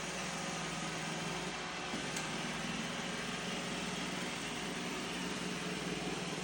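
Robot vacuum running: a steady motor whir with a low hum.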